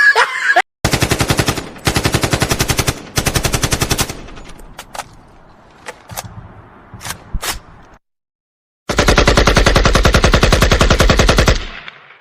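Rapid automatic gunfire: three bursts of about a second each, a few single shots, then a longer burst of nearly three seconds.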